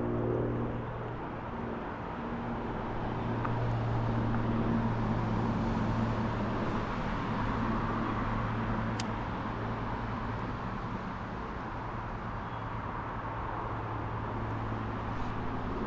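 Steady rushing of a flowing trout stream, with a low steady hum underneath and a single faint tick about nine seconds in.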